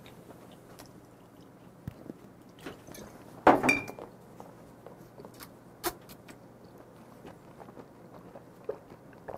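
Quiet mouth sounds as a man swigs soju from the bottle and swishes it round his mouth to rinse off cuttlefish ink, with small wet clicks and one short, louder noise about three and a half seconds in.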